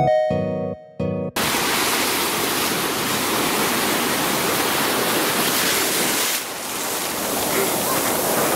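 Short, bright music notes cut off suddenly about a second in; then ocean surf washes up the beach in a steady rushing hiss that eases a little near the end.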